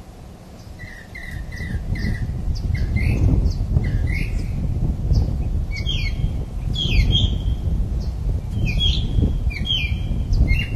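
Birds calling in short, repeated chirps and squawks, some dropping in pitch, over a low rumble that grows louder in the first few seconds.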